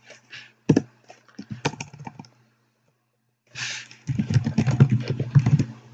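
Typing on a computer keyboard: a run of separate keystrokes, a pause of about a second, then a faster, denser run of keystrokes.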